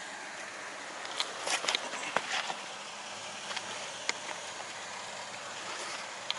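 Lifted Toyota Tacoma crawling slowly along a rutted dirt trail, its engine low under a steady hiss. A cluster of sharp clicks and crunches comes between about one and two and a half seconds in, with single clicks later.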